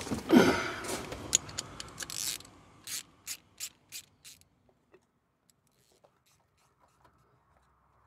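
Ratchet wrench clicking while a spark plug is screwed back into the engine: a run of sharp clicks that slows to about three a second and stops a little after four seconds in.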